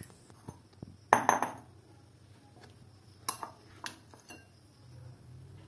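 Thick strained yogurt being tipped out of a cloth into a glass bowl: a short rustle and soft thump about a second in, then a few light clinks against the glass.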